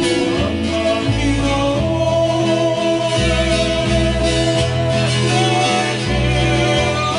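A man singing a Hawaiian song live, with strummed ukulele and a plucked bass line underneath.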